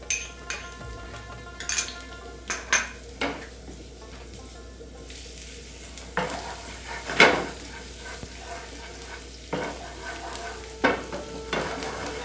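Finely chopped garlic sizzling in hot oil in a frying pan, stirred with a utensil that knocks and scrapes against the pan every second or so. The loudest knock comes about seven seconds in.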